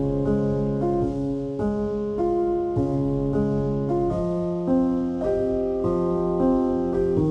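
Background piano music: a calm, even run of held notes, a new note or chord about every half second.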